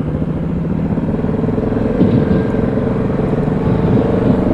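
ATV engine running steadily at low speed over rough ground, with a few short knocks about two seconds in and again near the end.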